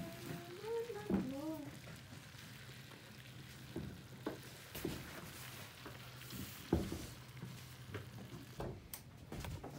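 Wooden pestle of a camel-driven sesame oil mill grinding through wet sesame seed paste in its mortar, a soft churning, stirring sound with scattered short knocks and creaks. A wavering pitched sound is heard in the first second and a half.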